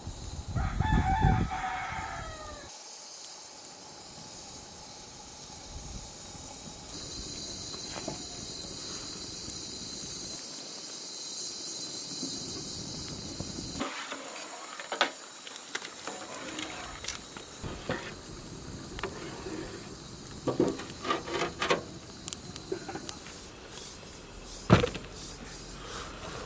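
A rooster crows once about a second in, a call of about two seconds that falls away at the end. Later come light metal knocks of a ladle in a pot of boiling rice and scattered clinks, with a single sharp clink near the end as glass tea cups meet a metal tray.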